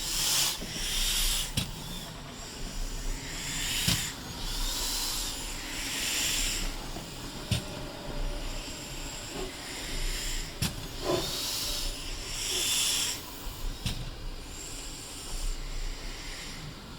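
GWR pannier tank no. 6412, a steam locomotive, working slowly: irregular puffs of hissing steam come every second or two over a low rumble, with a few sharp metallic clanks.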